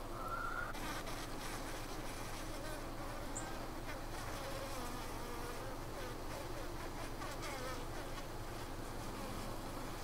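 Honey bees buzzing at a hive entrance: a steady hum of many wings, with individual bees' tones wavering in pitch. One bee's higher hum stands out briefly just after the start.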